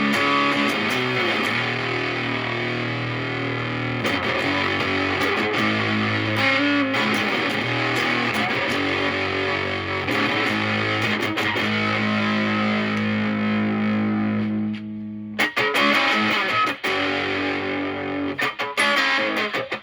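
Electric guitar (a Stratocaster) played through a Moollon Fuzz 14, a silicon BC108 Fuzz Face-style pedal, set near full fuzz gain into a Marshall Valvestate amp on its crunch tone. Sustained fuzzy lead lines, with a long held note in the second half that cuts off suddenly, followed by short choppy phrases.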